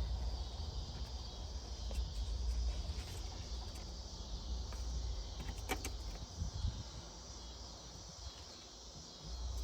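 A few light plastic clicks as a wiring harness and its connectors are handled and fitted, over a steady low hum and a steady high chirring.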